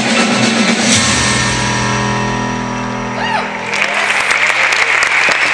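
Live band music ending on a long held chord, then audience applause starting about three and a half seconds in.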